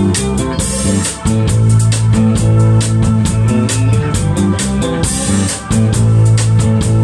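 Live instrumental rock band playing: electric guitar over a drum kit, bass and Hammond organ, with a steady beat of cymbal and drum hits. The groove breaks off briefly twice, about a second in and again near the end.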